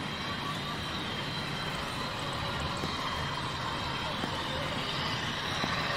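Model train running on a layout's track: a steady rumble with a faint hum.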